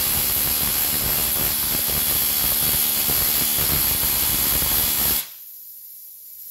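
Pneumatic rivet gun hammering a red-hot steel rivet into a Jeep frame: a fast, steady run of blows that stops abruptly about five seconds in. A fainter steady hiss carries on after it.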